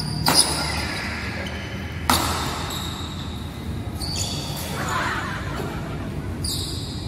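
Badminton rackets hitting a shuttlecock twice, about two seconds apart: sharp cracks that ring in the big hall. Short high squeaks follow later.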